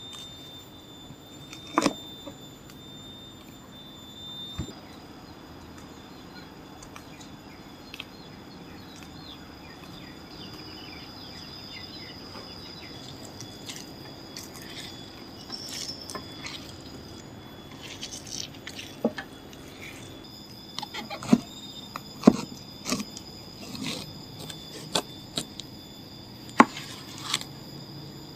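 Kitchen knife cutting a banana blossom on a wooden cutting board: scattered sharp chops, coming thick and fast in the second half. Behind them runs a steady high-pitched insect drone.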